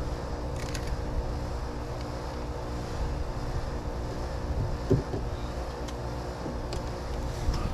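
A motor vehicle's engine running steadily, a low rumble with a steady hum, with a few light clicks and one short knock about five seconds in.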